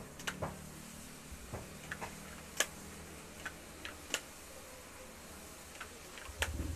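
Hair flat iron clicking as its plates are clamped and drawn down sections of hair against a comb: a dozen or so light, sharp clicks at uneven intervals. A low rumble comes in near the end.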